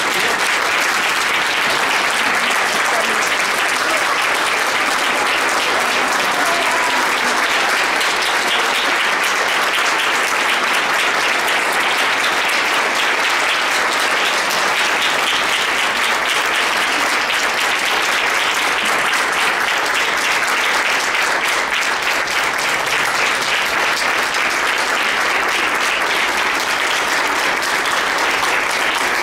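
Audience applauding, a steady and sustained ovation of many hands clapping.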